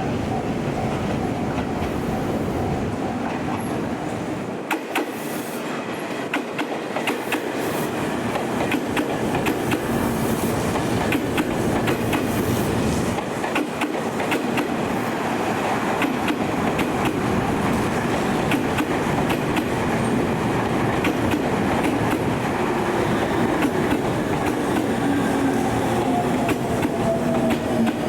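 Electric commuter train running past at close range, its wheels clicking repeatedly over rail joints. A whine falls in pitch near the end.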